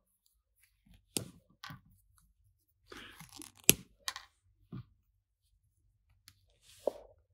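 Small plastic action-figure parts being handled: scattered light clicks and rustles, with one sharp click about halfway through and a few softer taps after it.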